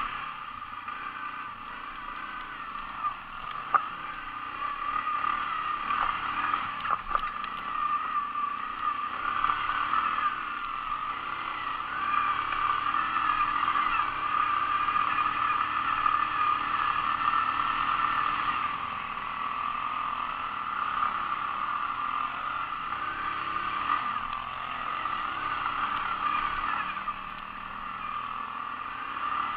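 ATV engine running while riding, its pitch rising and falling with the throttle, with a few brief knocks and clatters.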